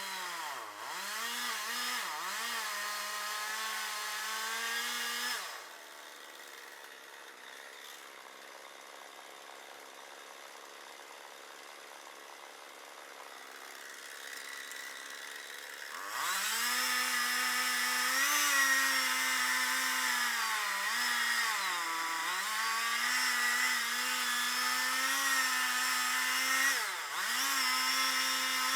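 Two-stroke chainsaw running at full throttle, its high engine note sagging and recovering as it bogs down under load in the wood. For about ten seconds in the middle it drops much quieter, then comes back loud at full revs.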